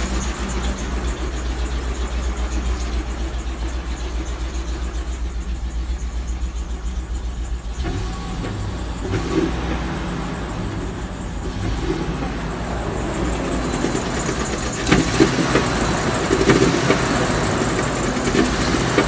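2003 Land Rover Discovery 2 engine running with a knock, the title's engine problem. It pulses evenly for the first several seconds, changes about eight seconds in, and gives several sharp louder knocks near the end.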